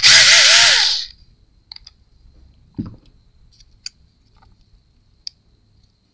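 A loud raspy burst lasting about a second at the start, then scattered faint clicks and taps as a laptop's small power-button board is handled and lifted out of the plastic chassis.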